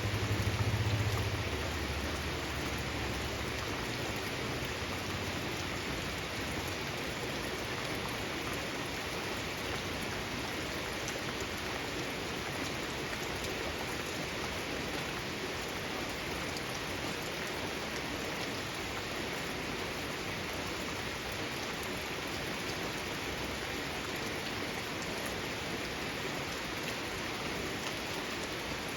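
Steady rain falling, an even hiss of drops on surfaces, with a brief low rumble in the first two or three seconds.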